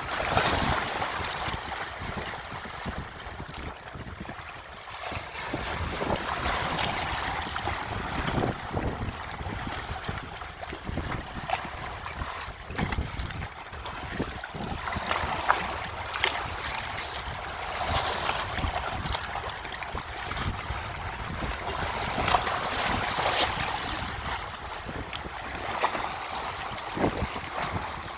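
Sea waves washing onto the shore, rising and falling, with wind gusting on the microphone.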